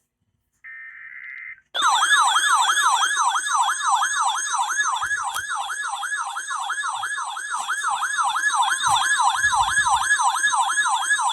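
A short burst of Emergency Alert System SAME digital header tones, then a loud alert tone that wails rapidly up and down, about three sweeps a second.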